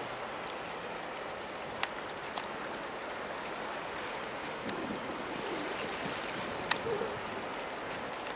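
Steady rush of water from a large container ship's bow wave as it passes close by, with a few sharp clicks about two, five and seven seconds in.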